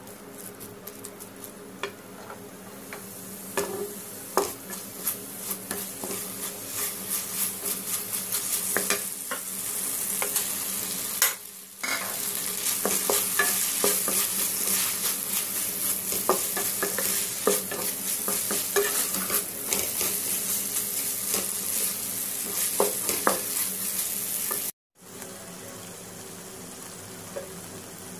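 Carrot and green pepper strips, then scrambled egg, sizzling in oil in a wok while a spatula stirs and scrapes them, with many light clicks of the spatula on the pan. The sound breaks off briefly twice, and after the second break near the end it is quieter.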